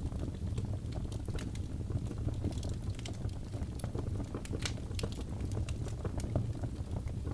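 Wood fire in a fireplace crackling: irregular sharp snaps and pops over a steady low rumble, with a couple of louder pops about four and a half and six seconds in.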